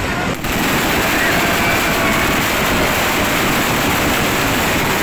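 Fireworks going off in a dense barrage: bangs and crackling merge into one continuous loud noise, with a faint short whistle about a second in.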